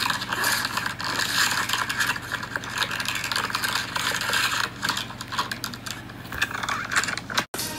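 Clear plastic bags crinkling and crackling as hands unwrap diecast toy cars. The sound cuts out briefly near the end.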